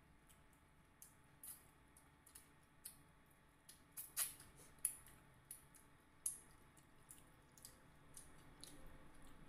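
Quiet, irregular wet clicks and smacks of eating by hand, a few a second and loudest in the middle: lips and tongue smacking while chewing and licking fingers, with fingers picking at fried fish.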